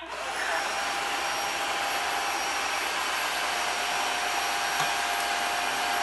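A Dreame H11-series cordless wet-dry floor washer switches on and runs steadily, its motor giving a steady whine over a rushing sound. It is scrubbing dried-on mud off tile.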